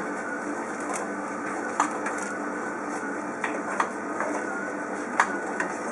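Metal slotted spatula and fork clicking against a pan as caramelized apple halves are lifted out of the caramel: about six sharp clicks spread out over a steady hum.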